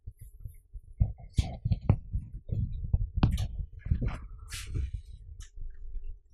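Irregular knocks, taps and rustles of a person moving about and handling things at a whiteboard, with a few sharper clicks among them.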